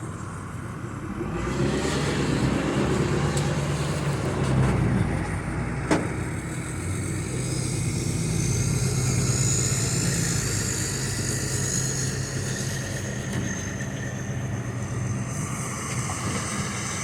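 A motor vehicle's engine running with a steady low hum, and a single sharp click about six seconds in.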